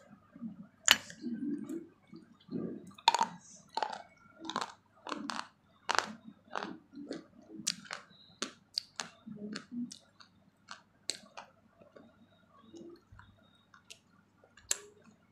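A person chewing and eating right at the microphone: irregular crunches, wet clicks and lip smacks, a few every second, growing sparser near the end.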